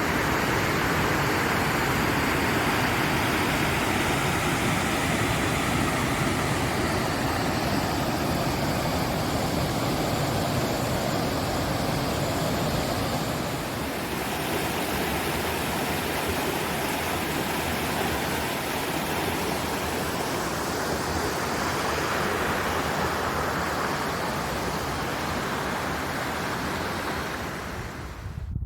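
Fast-flowing water rushing steadily, a dense even roar that eases slightly about halfway through.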